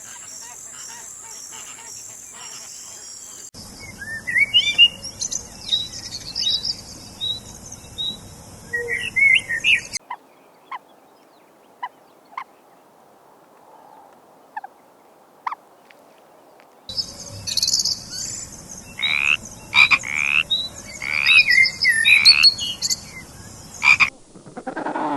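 Frogs calling in short, repeated chirping croaks that rise in pitch, in two loud runs separated by a quieter stretch of scattered single clicks. In the first few seconds a steady high pulsing trill is heard instead.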